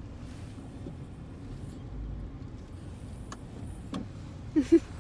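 Steady low rumble of a car cabin. A sharp click comes about four seconds in, and two short, loud pitched vocal sounds near the end.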